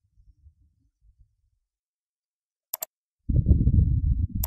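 Computer mouse clicks: a quick double click a little under three seconds in and another click at the end, as lines are picked off with the Eraser tool. Between them comes a low, muffled voice sound from the narrator lasting about a second, the loudest thing here, with a faint low rumble near the start.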